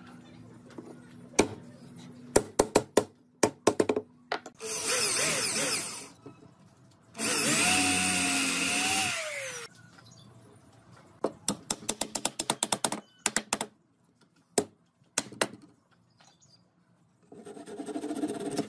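A power drill boring into pine in two runs, the second longer, its whine dropping as it winds down. Around them, bursts of rapid sharp taps, and near the end a hand saw starts cutting a wooden peg off flush.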